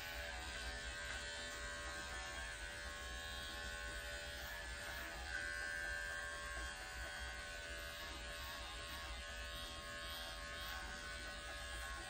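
Cordless electric dog clipper with a 7 blade buzzing steadily as it trims the hair on top of a dog's head. A slightly higher, louder tone comes in for about a second and a half near the middle.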